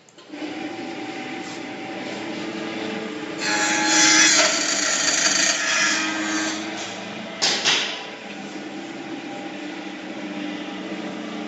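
CNC aluminium-coil bending and grooving machine running: a steady motor hum with a few steady tones starts just after the beginning. About three seconds in comes a louder, harsh cutting stretch lasting about three seconds, then a brief burst a second later, as the cutter works the aluminium strip.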